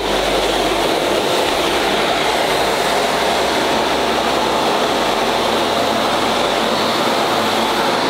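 Philips bagless canister vacuum cleaner running steadily while its floor nozzle is worked over a tiled floor.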